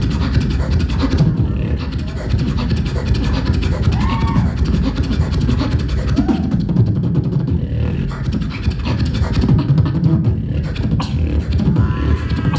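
Live beatboxing into a handheld microphone: a dense, fast rhythm of bass-drum and snare sounds, broken now and then by short pitched vocal tones.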